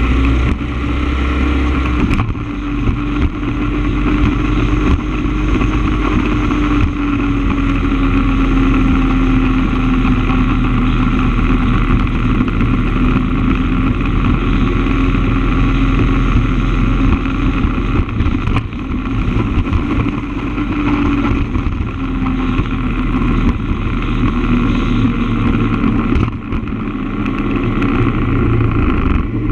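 Motorcycle engine running at a steady cruising speed, its note holding fairly even and dipping a little now and then, with wind rumbling on the microphone.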